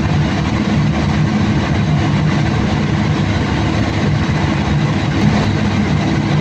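Caterpillar C15 inline-six diesel engine of a generator set running steadily, with the annoying sound that a diagnostic reading traces to injector number 3 not functioning, its current below normal.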